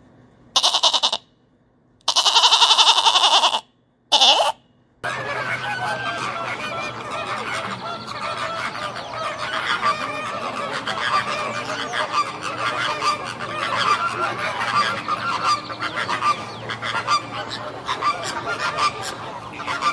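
A sheep bleating three times, the middle bleat the longest. Then, about five seconds in, a flock of flamingos honking and chattering, with many calls overlapping continuously.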